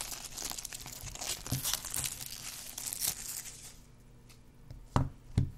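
Clear plastic shrink-wrap being torn and peeled off a boxed card deck, crinkling for about three and a half seconds, then two sharp thumps near the end.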